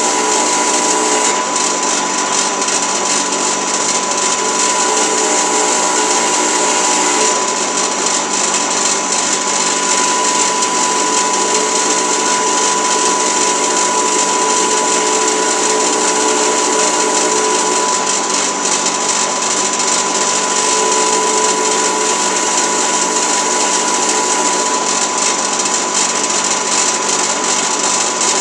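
An electric motor running steadily for the whole stretch, with a constant high whine and no hammer blows.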